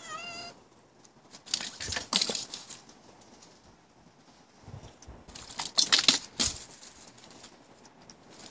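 A cat gives one short meow, then scratches and paws at a front door in two bursts of rapid scraping and knocking.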